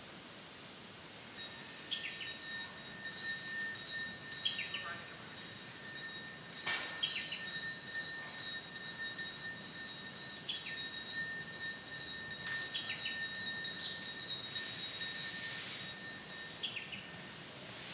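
Birds singing: a short phrase of quick downward-slurred chirps, repeated every couple of seconds, over a few steady high-pitched tones and a faint hiss. A single sharp knock about seven seconds in.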